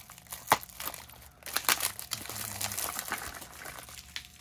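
Wrapping and a small cardboard lock box being handled and opened: crinkling and rustling with several sharp clicks and taps, the loudest about half a second in.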